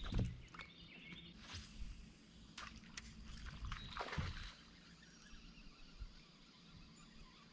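Faint scattered knocks and clicks of handling on a boat deck, several in the first half, then only faint background noise.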